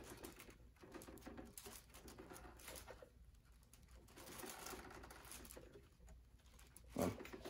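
Faint handling noise: fingers opening and fiddling with the small plastic top engine panels of a 1/12-scale RC military truck model, with light scrapes and clicks.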